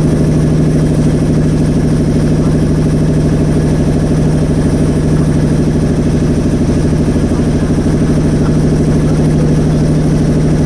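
Motorboat engine running steadily at a constant speed, with a fast, even chugging beat and a strong low hum.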